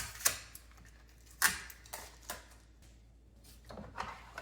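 Espresso machine's drip tray and parts being handled: a series of sharp clicks and knocks, the loudest about a second and a half in, with a small cluster near the end.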